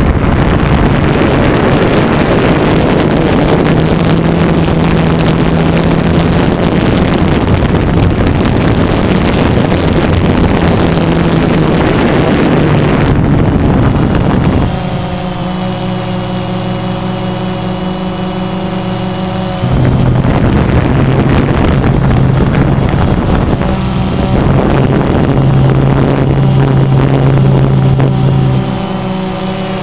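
Quadcopter drone's motors and propellers humming steadily, with wind rushing over the microphone. The rush is heavy for the first half and again from about twenty seconds in until near the end, and eases in between, leaving the steady pitched hum clearer.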